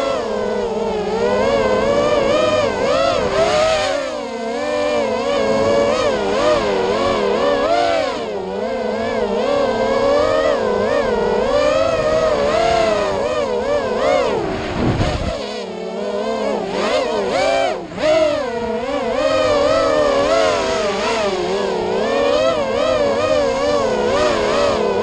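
Racing quadcopter's electric motors and propellers whining, the pitch rising and falling rapidly as the throttle changes through the turns. About fifteen seconds in the whine sweeps sharply down and briefly drops away before picking up again.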